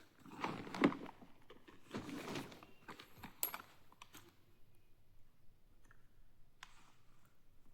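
Scattered handling noises of small objects: a few short rustles and clicks in the first few seconds, a sharp click, then quieter, with one brief rustle near the end.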